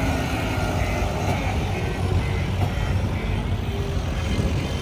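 Heavy diesel engine of a work vehicle running steadily, a continuous low rumble.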